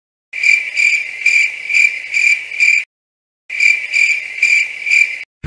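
Crickets chirping in an even pulse, about two chirps a second. The sound cuts off abruptly about three seconds in, returns after a moment of dead silence, and cuts off again near the end.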